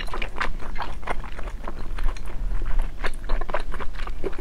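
A person chewing a mouthful of spicy braised meat close to the microphone, with wet mouth clicks and smacks coming several times a second.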